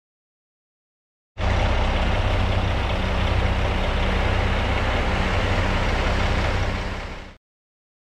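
Concrete mixer truck's diesel engine running with a deep, steady rumble. It cuts in about a second and a half in and cuts off abruptly near the end.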